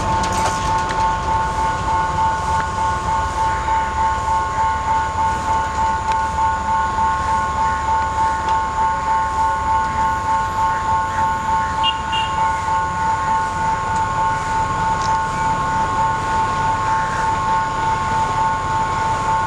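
Sri Lanka Railways S8 diesel multiple unit idling: a steady high whine of several tones that pulses about three times a second, over a low diesel rumble that fades after about fifteen seconds.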